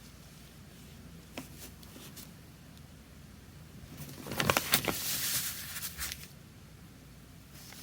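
Calligraphy brush and paper handling: a couple of faint taps, then about two seconds of louder rustling scrape with several sharp clicks in the middle, and quiet room tone around them.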